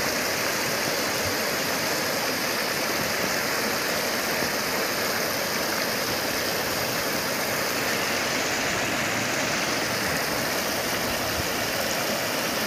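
Floodwater rushing in a strong current across a submerged road: a steady, even rush of water.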